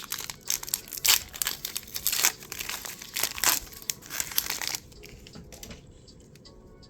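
Pokémon card booster pack wrapper being crinkled and torn open, a dense crackling rustle that dies down about five seconds in.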